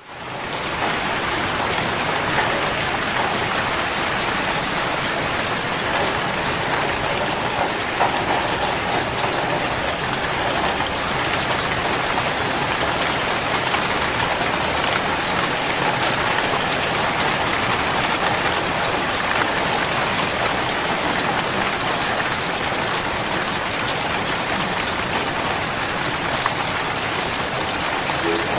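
Steady rain falling: an even hiss of rain with scattered individual drops ticking through it. It fades in over the first second.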